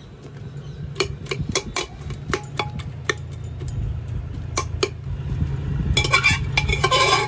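Steel ladle clinking and scraping against the inside of a pressure cooker and a steel pot as boiled potatoes are scooped out and dropped in. There are sharp single clinks throughout, a dense run of scraping and ringing near the end, and a low steady hum underneath.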